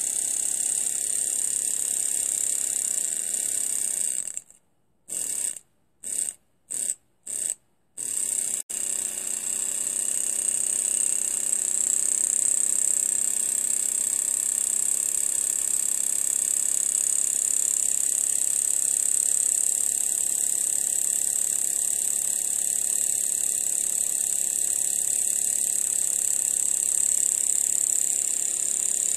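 Miniature three-cylinder brass steam engine running fast on compressed air: a steady high hiss over a hum. The sound cuts out and comes back about five times in quick succession between about four and eight seconds in, then runs on steadily.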